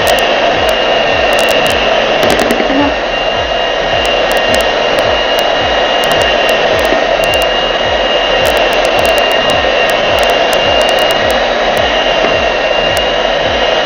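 Electric hand mixer running steadily, its twin beaters whipping cream that has turned fluffy, close to stiff peaks. A constant motor hum with a steady high whine.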